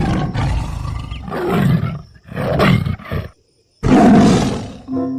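Tiger roaring and growling: a long rough roar, two shorter ones, then after a brief pause the loudest roar.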